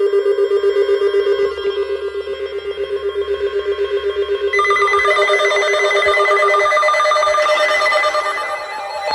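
Emergency Alert System alert tone announcing a severe thunderstorm alert. It is a rapidly pulsing, ringing electronic tone that switches to a higher set of pitches about four and a half seconds in.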